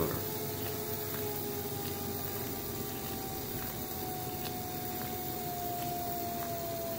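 Small DC motor running with a steady whine that slowly falls in pitch as its supply voltage is turned down and the motor slows.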